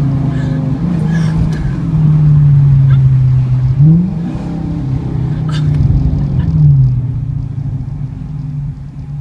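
Dodge Charger R/T's 5.7-litre HEMI V8 through Flowmaster mufflers, running loudly under throttle. The engine note jumps up in pitch about four seconds in, drops to a lower steady note a little before seven seconds, and eases off near the end.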